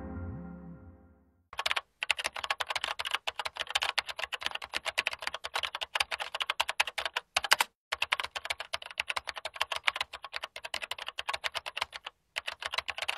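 The tail of a deep gong-like tone fades out, then rapid computer-keyboard typing clicks start about a second and a half in and run on with a couple of short pauses. The typing is a sound effect for text being typed out on screen.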